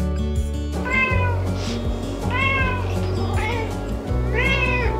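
Domestic cat meowing three times, each meow rising and then falling in pitch, over background music.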